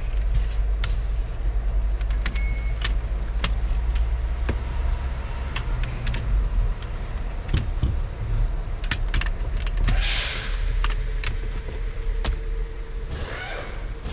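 Scattered clicks and taps of plastic parts as a turn-signal switch is fitted onto a Renault Master's steering column, with two short rasping scrapes about ten and thirteen seconds in, over a steady low rumble.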